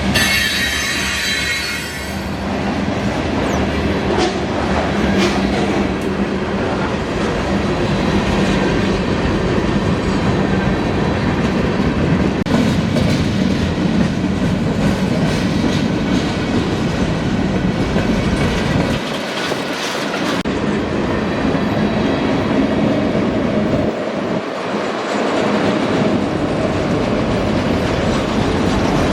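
Freight cars of a passing CSX freight train rolling by close at hand: a steady rumble of steel wheels on rail, with clicking over rail joints. A high wheel squeal at the start fades out within the first couple of seconds.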